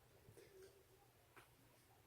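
Near silence with one faint, sharp click about one and a half seconds in: a joint cracking.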